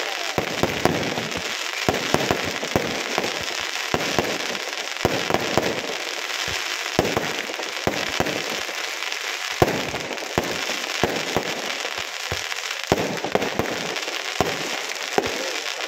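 Fireworks going off: continuous crackling with many sharp bangs at irregular intervals, one especially loud bang about ten seconds in.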